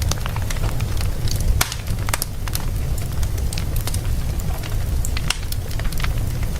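Fire crackling in a fireplace: many sharp, irregular pops and crackles over a steady low rumble of the flames.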